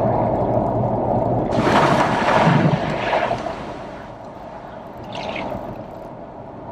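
Vehicle driving on a rain-soaked road, heard from inside the cabin: a steady rumble of engine and tyres with the hiss of water under the wheels. The hiss swells for about a second and a half around two seconds in, then the noise falls away to a lower level.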